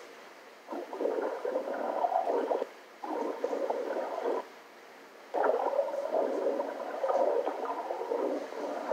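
Muffled underwater gurgling and bubbling from an underwater camera recording, played back through a small speaker. It comes in three stretches of roughly two, one and a half, and four seconds, with quieter gaps between.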